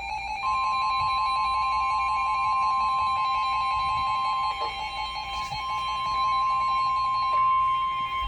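NOAA Weather Radio warning alarm tone: a steady, loud single tone near 1050 Hz that comes on about half a second in, after the SAME data header of a severe thunderstorm warning. Under it a receiver's own alert beeps, pulsing rapidly, and fades before the end.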